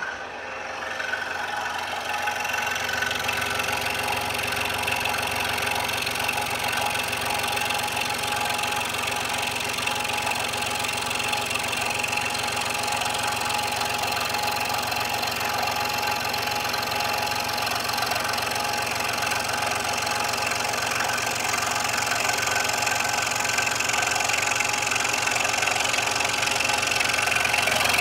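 Scroll saw running steadily, its blade stroking rapidly up and down as it cuts a curve through a piece of wood, growing slightly louder near the end.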